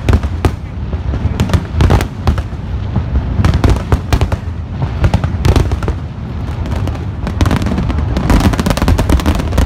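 Aerial firework shells bursting one after another, sharp bangs over a continuous low rumble. The bangs crowd into a rapid volley near the end.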